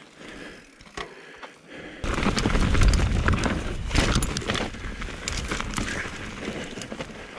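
Mountain bike riding fast down rocky singletrack: tyres crunching over dirt and stones, with the chain and frame rattling and clicking. It gets much louder about two seconds in, with heavy wind rumble on the microphone.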